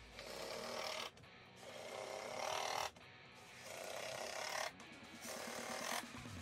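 Cordless impact driver driving short screws into a plywood spacer strip: four runs of about a second each with short pauses between, each run growing louder towards its end.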